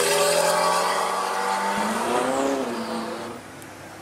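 Ferrari 288 GTO's twin-turbo V8 accelerating away, loudest at first and fading as it pulls off, with the engine note climbing in pitch about two seconds in. The engine sound cuts off abruptly just over three seconds in.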